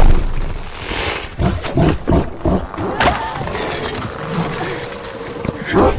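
Movie fight-scene sound effects: a heavy impact at the start, then a run of crashes and snaps as huge creatures tumble through hanging vines, with creature growls in between and another loud hit near the end.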